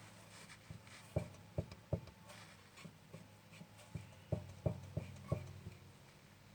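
Kia Ceed rear suspension knocking as it is worked: a run of sharp, irregular knocks about a second in and another run around four to five seconds in. This is the rear-suspension knock being traced to its cause.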